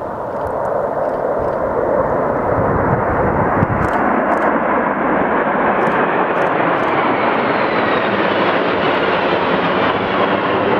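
A formation of jet fighters flying over, the jet engine noise building over the first couple of seconds and then holding steady and loud, with a faint whine slowly falling in pitch in the second half.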